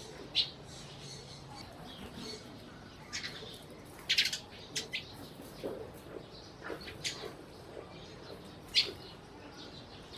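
Sparrows chirping: short, scattered high chirps, with a quick cluster about four seconds in and a sharp single chirp near nine seconds.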